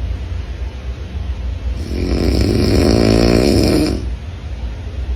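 A man snoring in his sleep: one long snore from about two seconds in, lasting about two seconds, with quieter breathing on either side.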